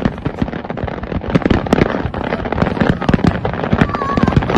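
Aerial fireworks finale: a continuous barrage of shells bursting, several loud bangs a second overlapping over a constant crackle.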